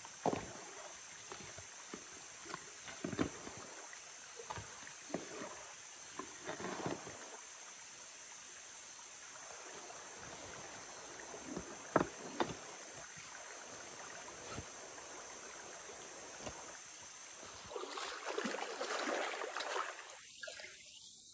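Gear being unpacked from a backpack: fabric rustling and scattered knocks as items are set down on river pebbles, over the steady rush of a stream. Near the end the running water swells louder.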